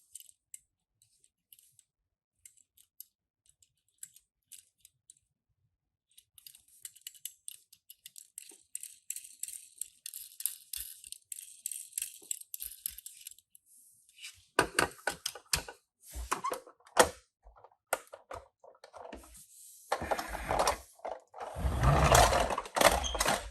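Small hard objects being handled, clicking and rattling. Scattered light clicks give way to several seconds of fine, dense rattling, then sharper knocks and loud handling noise near the end.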